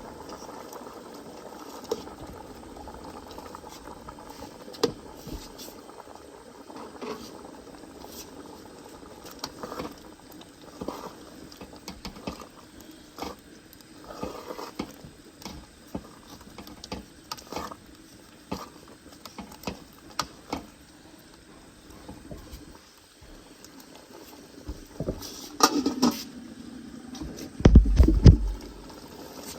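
A pot of soup bubbling on the boil, with many small irregular pops and taps, and a few louder knocks and a low thud near the end.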